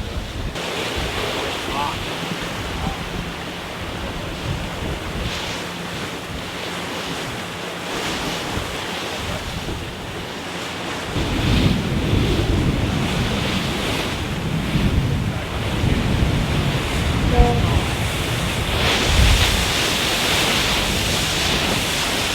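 Wind and rushing water around a Volvo Ocean 65 racing yacht under way, with wind buffeting the microphone. About halfway through, the wind rumble gets louder, and near the end the hiss of water and spray grows.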